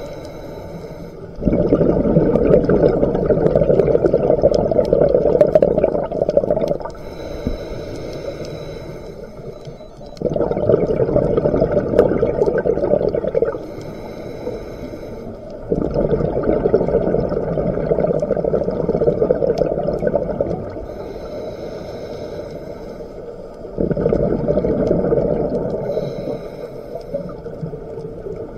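Scuba diver breathing through a regulator, heard underwater: a quieter hissing inhale through the demand valve, then a longer, loud rush of exhaled bubbles. The breath repeats about four times.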